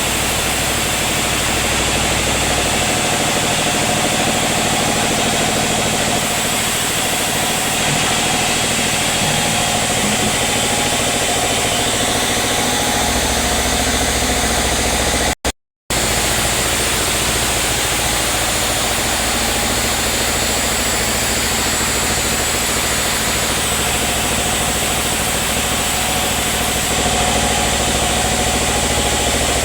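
Sawmill machinery running steadily, a constant motor hum with a hissing noise over it. The sound cuts out completely for about half a second about halfway through.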